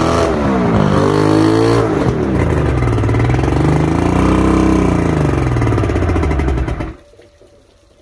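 Inline-six outboard motor with its cowling off, running on a stand and revved up and down several times by hand. It shuts off suddenly about seven seconds in.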